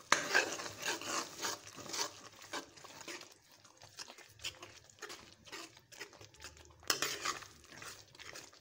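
A steel spoon stirring thick tomato and ginger-garlic paste in a metal kadai, scraping and clinking against the pan in irregular strokes, louder just after the start and again about seven seconds in.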